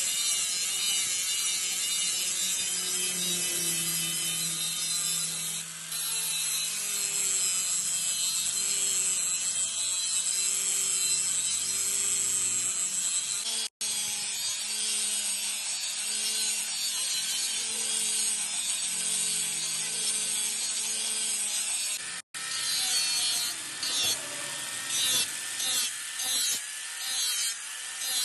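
Power grinder working a small steel dagger blade, a steady abrasive grinding hiss. Two brief dropouts, and in the last several seconds the grinding comes in short repeated passes, about one to two a second.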